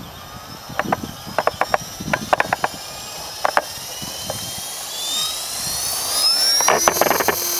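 Electric T-Rex 450 RC helicopter spooling up: the motor and gear whine rises steadily in pitch and grows louder. A few sharp clicks come in the first few seconds.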